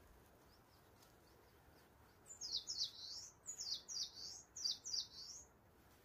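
A small songbird singing: three quick pairs of high, down-slurred notes, starting about two seconds in, after a few faint high notes.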